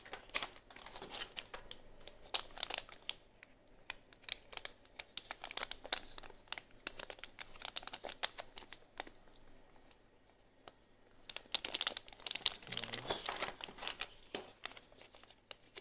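Clear plastic zip bag crinkling as it is handled, with small plastic mount parts inside, in bursts of crackles and a quieter stretch about ten seconds in.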